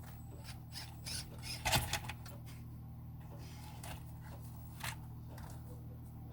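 Scattered small clicks and rustles, as of something being handled, loudest about two seconds in and again near five seconds, over a steady low hum.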